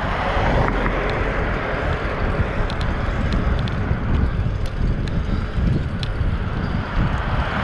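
Wind buffeting the camera's microphone over the steady rolling noise of a fixed-gear bike riding on smooth asphalt, with a few faint light ticks.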